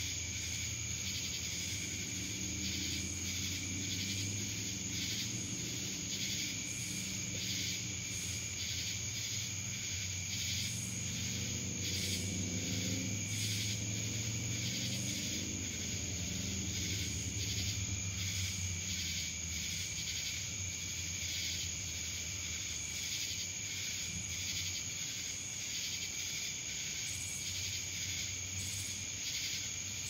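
Dense chorus of singing insects, which the recording calls cicadas, holding a steady high trill with a second lower tone and an uneven pulsing through it. A low steady rumble runs underneath and swells around the middle.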